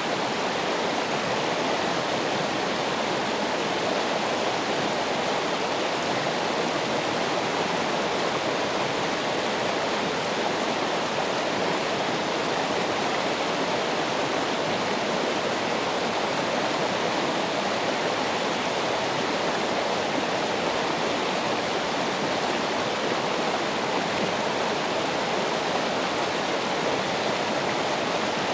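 Running water rushing steadily, an even unbroken sound with no splashes or changes.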